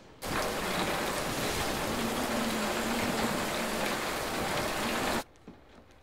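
Heavy rain falling steadily in a typhoon downpour. It starts abruptly just after the beginning and cuts off abruptly about five seconds in.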